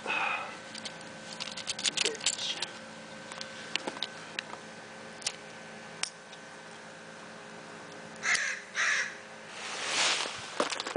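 Homemade fuse burning toward a duct-taped flash-powder charge, with scattered small ticks and clicks. About eight seconds in there are two short harsh sounds, and near the end the flash powder flares up with a rushing hiss of flame lasting about a second, with no sharp bang.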